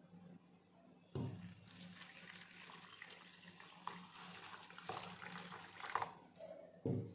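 Water poured from a steel vessel into a ceramic bowl of poha (flattened rice), a steady pour that starts suddenly about a second in and stops about five seconds later. A short thump follows near the end.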